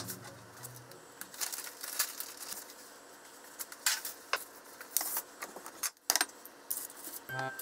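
Scattered light clinks and taps of tableware and kitchen items being handled on a counter, a few sharp ones at irregular intervals. Background music fades out in the first second and comes back near the end.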